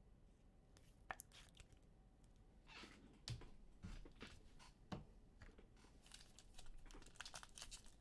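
Faint handling of trading cards and their foil pack wrappers: scattered soft clicks and short rustles, busier in the last couple of seconds.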